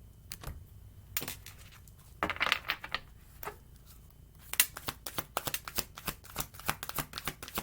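Tarot cards being shuffled by hand: a few scattered card slaps and rustles, then from about halfway a rapid run of card clicks as the deck is shuffled.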